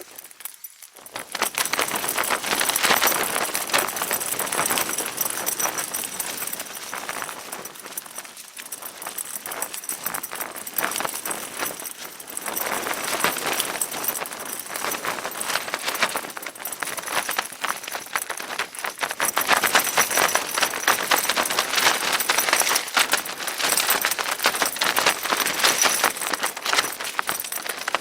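Strong wind gusts buffeting a Tarptent StratoSpire 1 tent from inside: the fabric shaking and flapping and the zip pulls rattling, swelling and easing with each gust. It starts loud about a second in.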